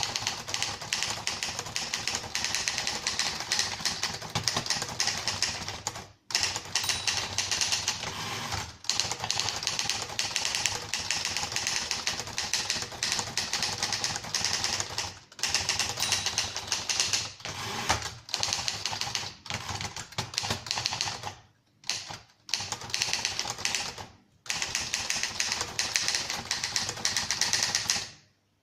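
1950s Remington Rand standard manual typewriter (a Torpedo model) being typed on. Keystrokes come in rapid runs, broken by short pauses about six, nine and fifteen seconds in, around twenty-two seconds, and near the end.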